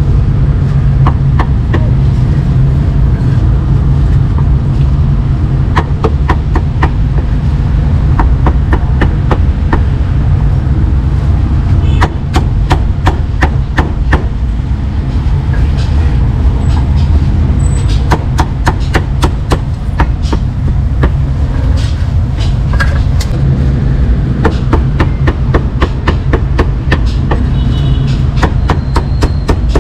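Meat cleaver chopping cooked meat on a chopping block: sharp knocks in quick runs of several strikes with short pauses between, over a steady low rumble.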